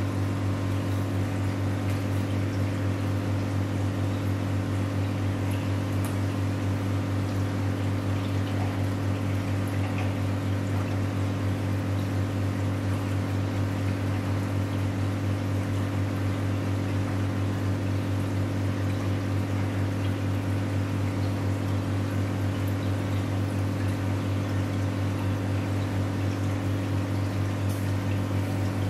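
Air stones bubbling in a large aquarium over a steady low hum from the tank's pump equipment, unchanging throughout.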